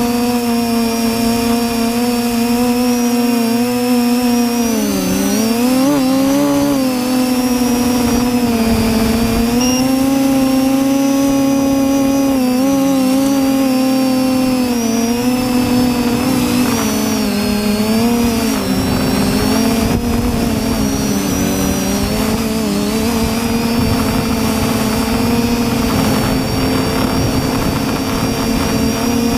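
TBS Discovery quadcopter's four brushless motors and propellers buzzing steadily, heard from the GoPro on its frame. The pitch dips and recovers about five seconds in and again around thirteen seconds as the throttle changes. Through the second half, gusty wind rumbles on the microphone underneath.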